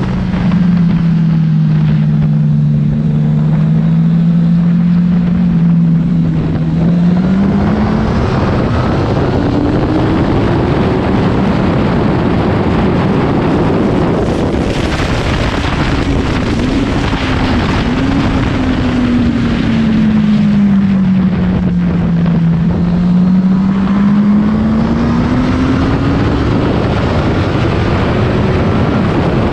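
Honda CBR1000 sport bike's inline-four engine running under way, its pitch holding low for the first several seconds, climbing, sinking again around the middle and rising once more near the end as the speed changes. Steady wind rushing over the microphone.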